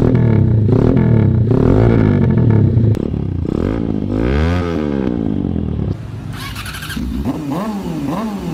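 Motorstar Z200-series motorcycle with an aftermarket slip-on exhaust, revved repeatedly while standing still: the engine note climbs and drops with each blip of the throttle. About six seconds in the sound turns quieter and the revs come quicker and shorter.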